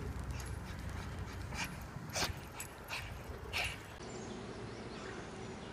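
Pit bulls at play giving a few short huffs and pants in the first few seconds, then only faint steady background noise.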